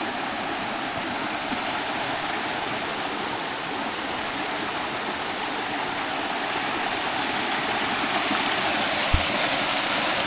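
Creek water rushing steadily over rocks, growing a little louder near the end. There is a single low knock about nine seconds in.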